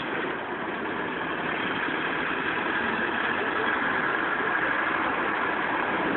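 GE U20C diesel-electric locomotive's twelve-cylinder engine running steadily as the train rolls in.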